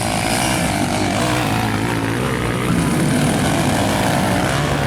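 Several motocross bike engines running together, their pitches rising and falling as the throttles are blipped.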